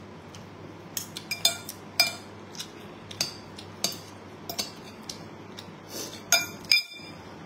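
Metal fork and spoon clinking against a ceramic bowl as food is worked and scooped. A run of sharp, irregular clinks starts about a second in, and the loudest two come near the end.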